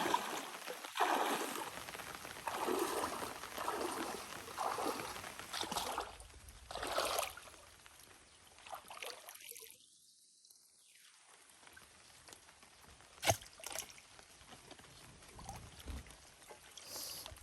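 Water sloshing and trickling in uneven splashes for the first seven seconds or so, then quieter, with one sharp knock about thirteen seconds in.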